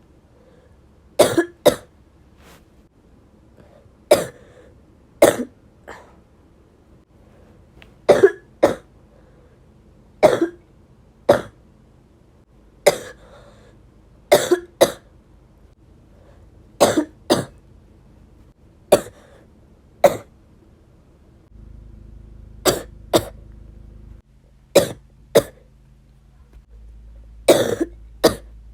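A person coughing again and again: short coughs, often two in quick succession, coming every second or two.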